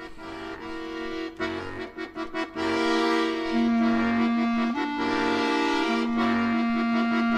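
Accordion playing a tune in long held notes over a low bass note about once a second, swelling louder about three seconds in.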